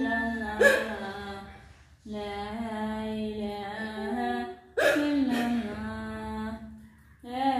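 A boy wailing in long, drawn-out cries, each held for a couple of seconds before breaking off, with two sharper, louder outbursts: one about half a second in and one near five seconds.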